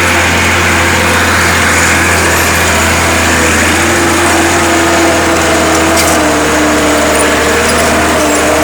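Massey Ferguson 295 turbo tractor's diesel engine running steadily under heavy load at about 1,800–2,000 rpm, labouring as it pulls a disc harrow through heavy soil.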